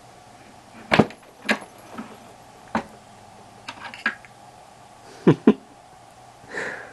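Reloading press worked by hand to seat a bullet in a .30-06 rifle case: a series of sharp clicks and knocks, the loudest about a second in and two in quick succession about five seconds in.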